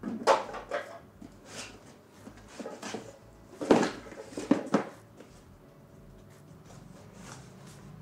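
Cardboard boxes being handled: a string of short scrapes and rustles as a small box is slid out of a larger one and the flaps are moved, loudest about four to five seconds in, then quieter.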